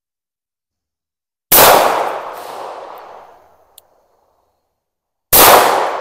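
Two shots from a Tisas PX-9 Gen 3 9mm pistol, about four seconds apart, each echoing off the surrounding trees and fading over about two seconds.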